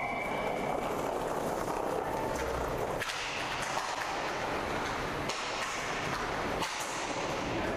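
Inline hockey game sounds on the rink: a steady rushing noise with a few sharp clacks of stick and puck, about three seconds in, past five seconds and near the end.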